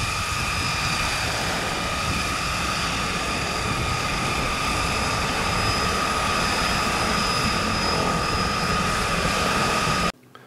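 Seaplane's propeller engine running steadily, a high even whine over a low rumble, cutting off abruptly near the end.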